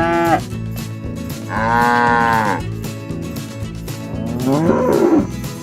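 Cattle mooing: the end of one call right at the start, then a full moo lasting about a second, and another moo near the end.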